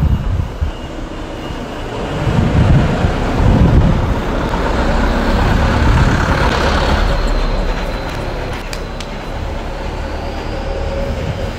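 A small box truck driving past on the street, its rumble building to a peak about halfway through and then fading as it moves away.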